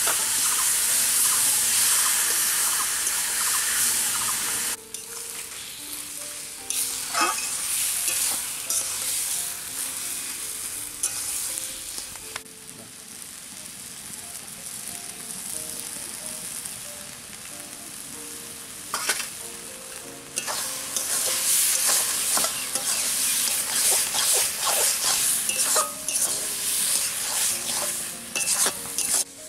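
Chopped taro frying and sizzling in a metal kadai, with a metal spatula scraping and clinking against the pan as it is stirred. The sizzle is loud for the first few seconds, quieter through the middle, and loud again from about two-thirds of the way in.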